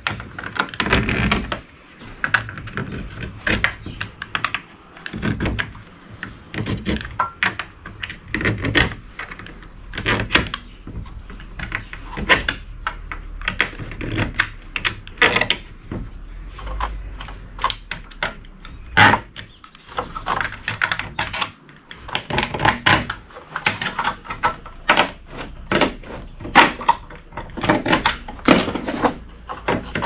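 Side cutters snipping component legs and prying small parts off a circuit board: a long run of irregular, sharp clicks and snaps, several a second, with knocks from handling the board in its metal frame.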